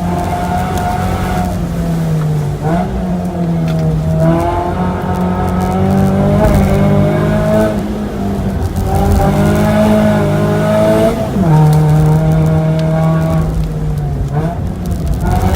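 Mazda 3's four-cylinder engine pulling hard at high revs during a hill-climb run. Its pitch drops sharply and picks up again several times as the driver shifts gears or lifts for corners.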